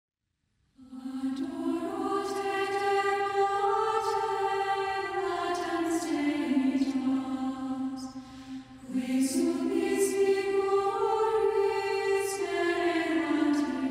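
Choir singing a slow chant in two long, drawn-out phrases, with a short dip between them about eight or nine seconds in.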